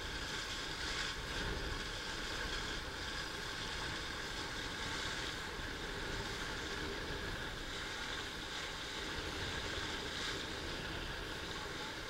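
Steady wind and choppy water noise around a boat on open sea, with a faint constant hum underneath.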